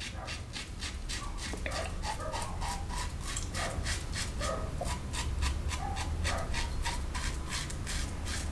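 Merkur 34C closed-comb safety razor with a Treet Carbon blade scraping through lathered stubble on the upper lip and chin in short, quick strokes, about four or five a second.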